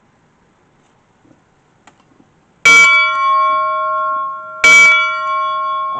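Brass steam-locomotive bell from a New York Central locomotive, struck twice about two seconds apart. Each stroke rings on in several clear tones that slowly die away.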